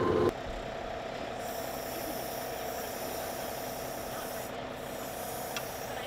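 Tractor engine idling steadily at a moderate level, with a couple of faint clicks near the end.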